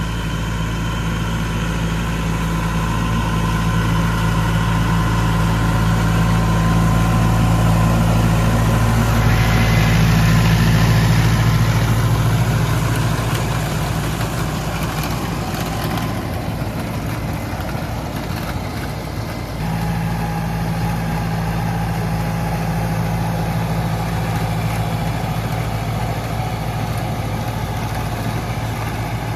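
Tractor engine running steadily while powering a round baler-wrapper, a constant low hum with machinery noise over it. The engine note fades for several seconds past the middle and comes back suddenly about twenty seconds in.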